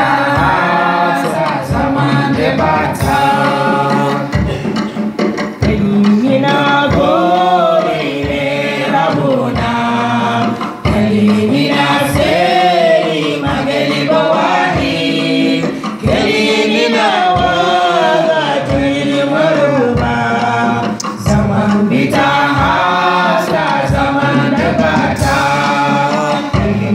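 A small vocal group of men and women singing a gospel song through microphones and loudspeakers, over a steady drum beat.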